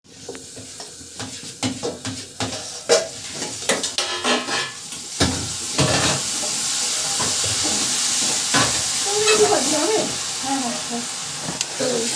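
Metal spatula scraping and knocking against a kadai while chhurpi (a curd cheese) is stir-fried. From about five seconds in, a steady sizzle from the pan joins the stirring.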